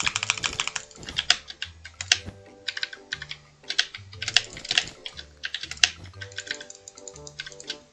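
Computer keyboard being typed on in short, uneven runs of keystrokes, with pauses between runs. Background music with a low bass line plays underneath.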